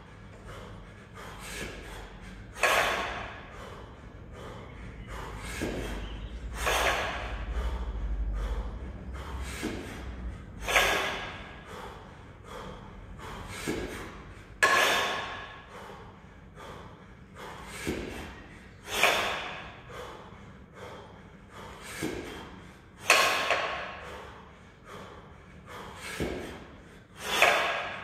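A lifter's heavy, forceful breathing through a set of double kettlebell jerks, with a loud sharp exhale about every four seconds, one to each rep.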